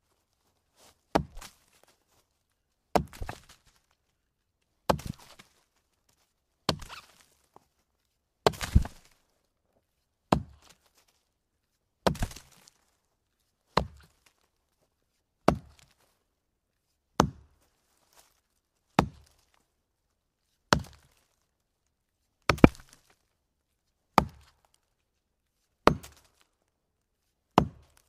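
A wooden log being chopped: about sixteen sharp blows, one every couple of seconds, each dying away quickly. A few blows land as a quick double strike.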